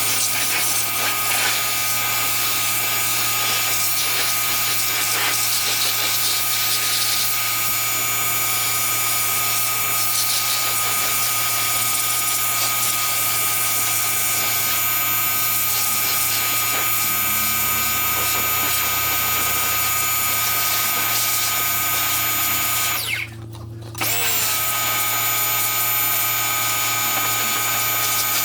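Pressure washer running steadily with a motor whine, rinsing degreaser off an engine. It cuts out for about a second near the end, then starts up again.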